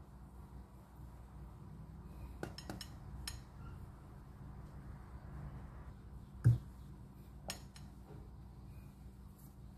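Plastic measuring cup knocking against a stainless steel mesh sieve as flour is scooped and sifted: scattered light clinks, the loudest about six and a half seconds in, over a faint low hum.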